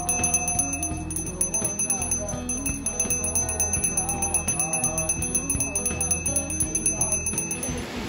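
Background music with a melody of stepped notes over sustained high tones; it cuts off abruptly just before the end.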